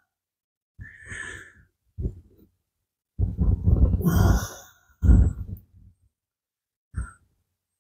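A man's sighs and heavy breaths of effort in about five separate short bursts, made while straining at fiddly work with his hands.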